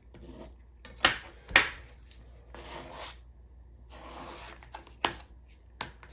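Food prep handling: a few sharp knocks as items are set down on the work surface, with soft rustling and rubbing in between.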